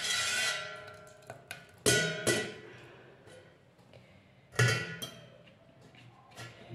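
Metal cooking pot and lid clanking: a ringing clang that dies away over about a second, then sharp knocks about two seconds in and again near four and a half seconds, each ringing briefly.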